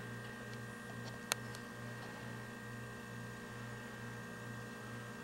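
Steady low electrical hum that pulses about four times a second, with a single sharp click about a second and a half in.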